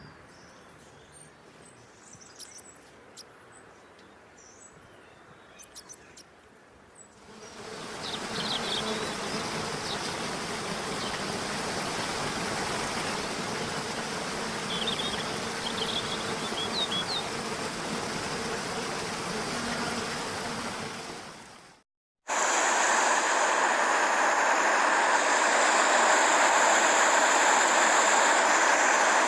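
Outdoor nature ambience: a few short bird chirps over quiet, then a steady rushing noise with occasional chirps. After an abrupt cut, a louder, even rushing noise.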